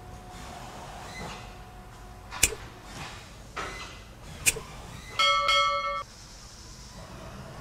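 Two sharp clicks about two seconds apart, then a short bell-like chime of several tones near the end: the mouse-click and notification-bell sound effect of an animated subscribe button.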